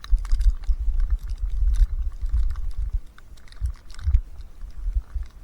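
Footsteps crunching through deep fresh snow, a quick run of crisp crunches, with wind buffeting the microphone in low rumbles that are heaviest over the first three seconds.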